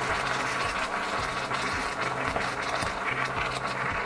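Caustic soda solution swirling in a glass bowl, a liquid noise with many small clicks, over background music with a steady bass line.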